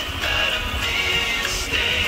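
Background music with a high, wavering melody line, over a low rumble.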